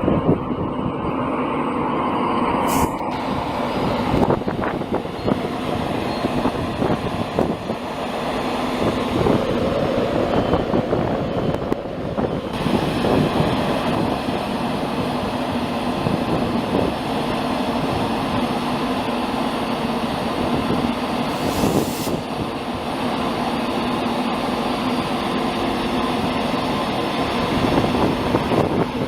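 A train at close range: a loud, steady mechanical drone with rumbling noise that carries on throughout.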